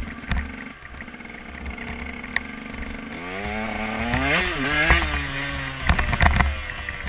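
KTM EXC 125 Six Days single-cylinder two-stroke enduro engine under way: a steady note for about three seconds, then it revs up twice in quick succession before settling back. Wind rumbles on the helmet microphone, with a few sharp knocks near the end.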